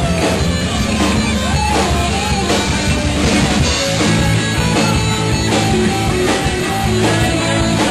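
Live rock band playing loudly, with guitar and drums, in a steady, unbroken stretch of a song.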